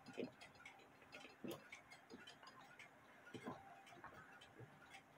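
Faint, irregular small clicks and taps of pliers working the wire trip lever on a cuckoo-quail clock movement, bending it so that it catches the quail's arm.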